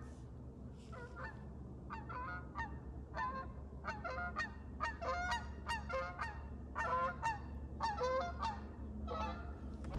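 Geese honking: a series of short calls repeated again and again, some in quick clusters.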